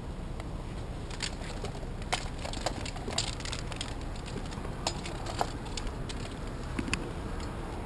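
Scattered sharp clicks and crackles of a tree climber moving about on a limb: rope and climbing hardware handling and boots and gloves scraping on bark. They come over a steady low background rumble.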